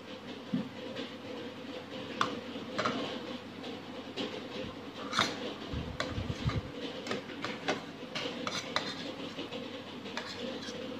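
Metal spoon scraping and clicking against a plate while spreading sauce over a fried patty, with several sharp clicks over a steady background hum.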